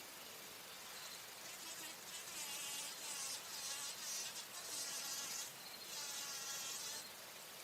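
Bumblebee buzzing, swelling in several louder spells from about a second in until near the end, over a faint steady background hiss.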